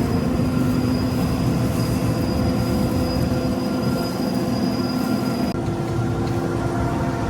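Heavy farm machinery running steadily: a drone with several steady tones and a high whine. The whine drops out abruptly about five and a half seconds in.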